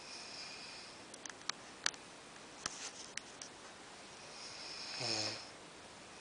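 A man snoring in his sleep: a breathy snore at the start, a few sharp clicks, then a louder, rattly snore about five seconds in.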